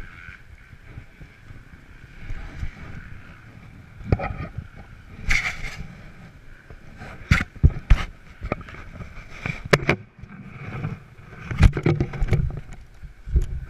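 Handling noise on an action camera: irregular knocks, clicks and rubbing against its housing as it is carried, then grabbed by hand. There are sharp knocks about seven and twelve seconds in, over a faint steady background hiss.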